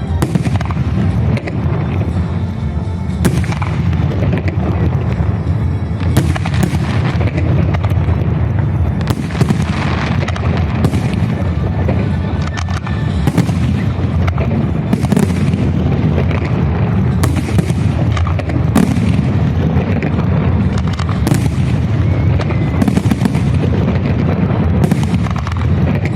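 Salute fireworks: aerial shells bursting one after another, about twenty bangs roughly a second or two apart, over a steady low rumble.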